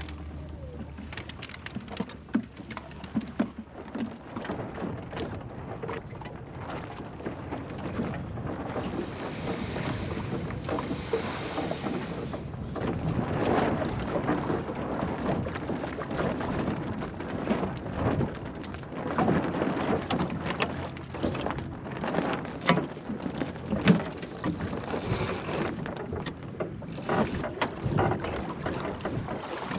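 Water splashing and slapping irregularly against the hull of a small sailing skiff under way, growing louder in the second half.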